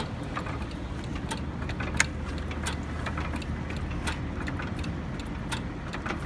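Old single-cylinder hit-and-miss stationary engine with heavy flywheels running slowly, with a steady low rumble and irregular mechanical clicks, a sharper click about two seconds in.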